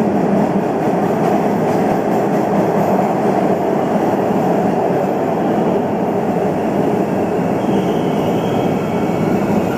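Boston Orange Line subway train (Hawker Siddeley-built 01200-series cars) pulling into an underground platform, the cars running past with a steady loud rumble of wheels on rails. A faint high squeal creeps in near the end as the train slows.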